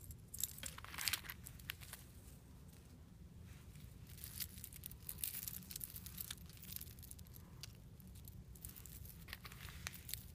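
Faint clicking and rustling of a pile of costume jewelry being handled, beads and metal chains knocking together in scattered small clicks as hands sort through it.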